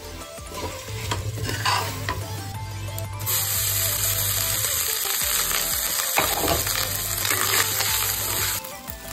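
Cooked white rice tipped into a hot aluminium kadhai starts sizzling about three seconds in, a steady high hiss under a slotted spatula stirring and scraping. The hiss stops abruptly near the end. Before it come a few clinks and scrapes of a ladle against the pot.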